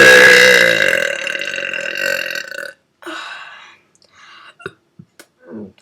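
A person belching one long, loud, pitched burp lasting nearly three seconds, followed by a shorter, softer sound and a few faint clicks.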